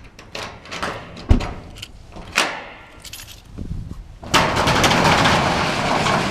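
Keys jangling and small handling clicks with one sharp knock, then a long, loud rattling noise of a door being opened, starting a bit past the middle.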